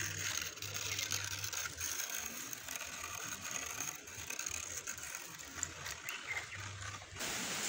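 Wood fire crackling under a cooking pot, many small irregular snaps over a hiss, with firewood being shifted in the flames.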